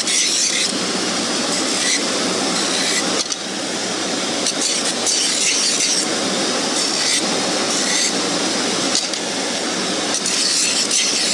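Wooden salad-tong piece sanded on a spinning sanding drum: a steady, loud grinding hiss. It grows harsher several times as the wood is pressed and turned against the abrasive to round over its edges.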